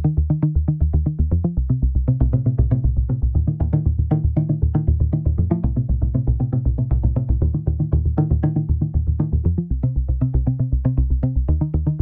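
Electronic loop: a drum loop with a synth bass run through Ableton Live 11's Spectral Resonator effect, with a compressor sidechained from the drums. The bass comes as a fast, even pulse under short drum clicks.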